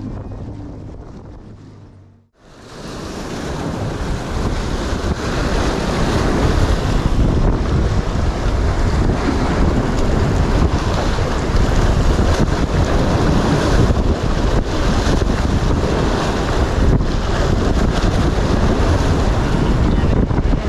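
Wind buffeting the microphone over waves surging and washing against a rocky shore, a dense, steady roar. It briefly fades out about two seconds in, then comes back and holds.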